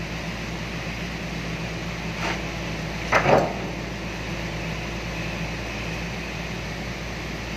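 Excavator engine and hydraulics running with a steady hum while the bucket presses a solid tyre down onto its rim. A short sharp knock comes about two seconds in, and a louder double crack a second later.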